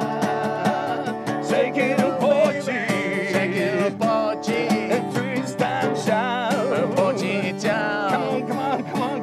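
Acoustic guitar strummed in a lively, even rhythm, with voices singing along.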